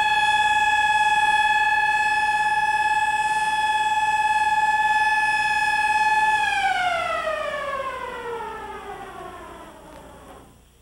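A siren sounding one long steady high tone for about six seconds, then winding down, its pitch falling steadily as it fades away.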